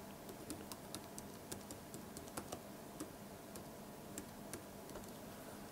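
Computer keyboard keystrokes: faint, irregular clicks, about three or four a second, as a password is typed in.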